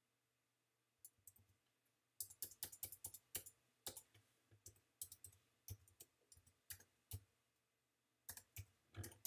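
Computer keyboard typing: a run of quick key clicks as text is deleted and an IP address is typed, starting about a second in, with a short pause near the end.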